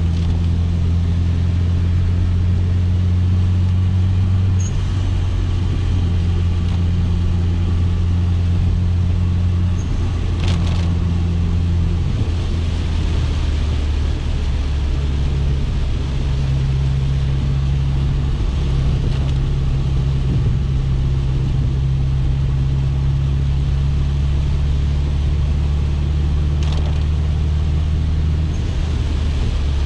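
2004 Subaru Impreza WRX STI's turbocharged flat-four engine running steadily under load, its note shifting about four, twelve and fifteen seconds in as the engine speed changes. A faint click comes about ten seconds in and another near the end.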